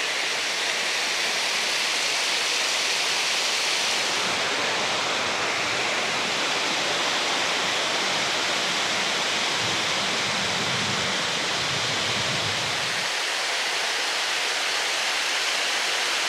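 Water rushing through a stone-lined channel and pouring down a stepped stone cascade: a steady, even rush of water.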